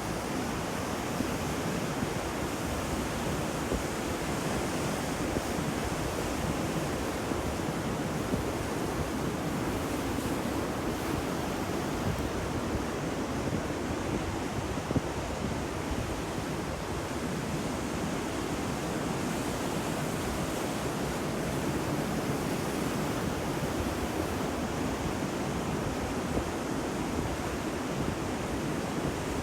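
Ocean waves on a shore: a steady, continuous rush of surf with no single wave standing out.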